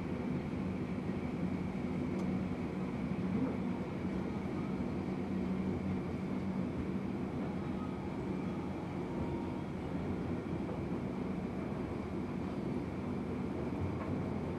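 Steady drone of airport ramp machinery around a parked jet airliner: a low hum with a faint high whine held over it, unchanging.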